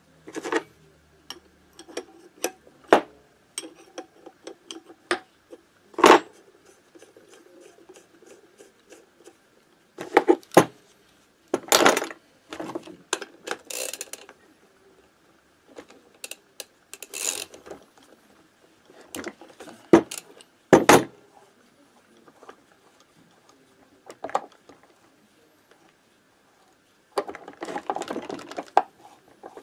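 Hand tools working on a Minarelli AM6 two-stroke engine's ignition side: irregular metallic clicks, knocks and clinks, a run of light ticks, and a few longer scraping rattles as the ignition parts are unbolted and taken off.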